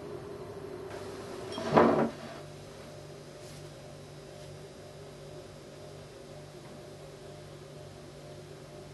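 Steady low electrical hum, with a brief loud noise about two seconds in; after it the hum continues, lower in pitch.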